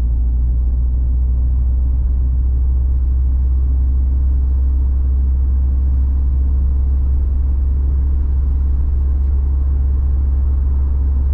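Steady low rumble of a car driving along a paved road, heard from inside the cabin: engine and tyre noise at an even speed.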